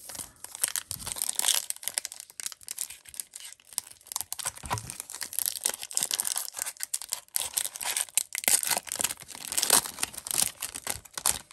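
Crinkly plastic wrapper of an Upper Deck hockey card pack being torn open and handled: a dense run of crackling and rustling that stops just before the end.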